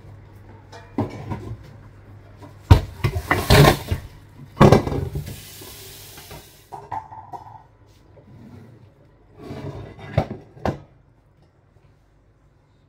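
Kitchen clatter of a basin and dishes being knocked and handled while chicken drumsticks are washed, with a few seconds of running water in the middle. The loudest knocks come about three and five seconds in, with more clatter near ten seconds.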